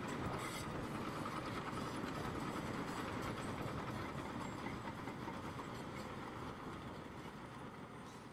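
Steady mechanical rattling noise that fades out gradually over the second half.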